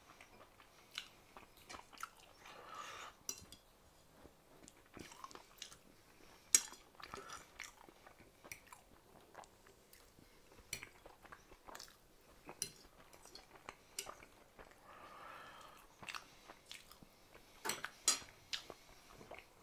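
Close-miked chewing and biting of fried chicken and green peas, with scattered sharp clicks of a fork against the plate.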